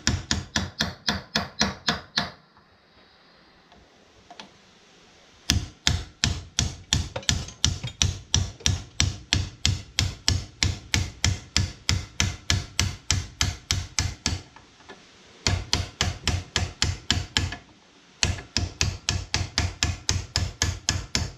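Hammer tapping a socket on an extension, used as a drift, against the wrist pin of a new piston held in a vise, driving the pin out. Quick, even metal-on-metal taps come at about four a second in four runs, with short pauses between them.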